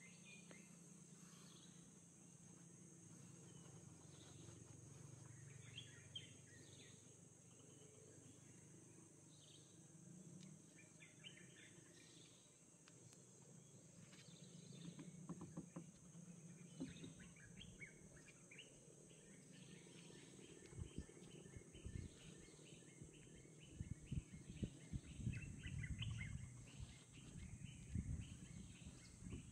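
Faint riverside ambience: scattered short bird chirps over a steady high insect drone, with irregular low thumps of wind or handling on the microphone in the second half.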